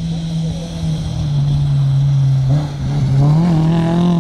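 Rally car engine at full throttle as the car comes down a dirt stage and passes close by. The engine note drops about a second in, then climbs again as the car nears.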